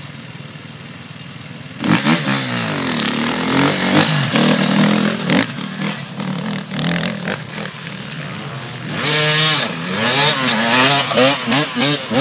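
Enduro motorcycle engines idling at the start, then about two seconds in one bike launches hard, revving up and shifting through its gears as it pulls away. From about nine seconds in another bike passes close, revving hard with quick rises and falls in pitch.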